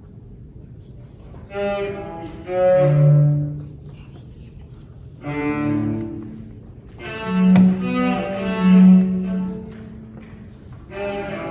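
Cello, played by a young student, bowed in about four short phrases of a few held notes with brief pauses between them.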